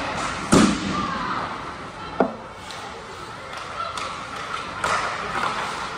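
Ice hockey play in an indoor rink: a loud crack of stick and puck about half a second in, a sharper click about two seconds later, and lighter knocks near the end, over the scrape of skates and faint voices in the arena.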